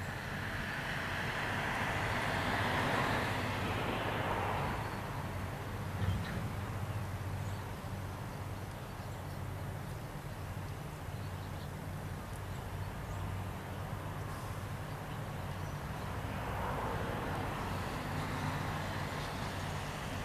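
Kobelco excavator's diesel engine running steadily, swelling louder twice, near the start and again near the end, with a single knock about six seconds in.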